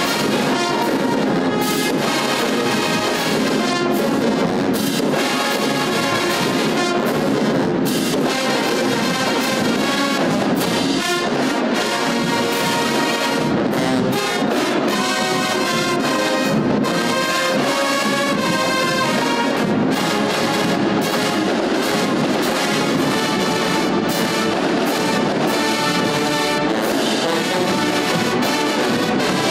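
A full marching band playing loudly: brass, saxophones, clarinets and flutes over a drum section, continuous throughout.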